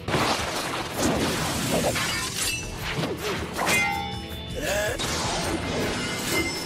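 Cartoon fight sound effects over dramatic background music: a run of heavy punch-impact and smash sounds. Hard hits come at the very start, about a second in, and near four seconds.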